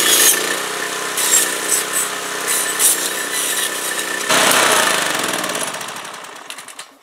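DR walk-behind trimmer with a 12-inch Beaver Blade chainsaw disc, its engine running at full speed, with sharp knocks as the spinning blade chews into privet stems. About four seconds in, the engine is shut off, and the engine and blade spin down, falling in pitch and fading out over about three seconds.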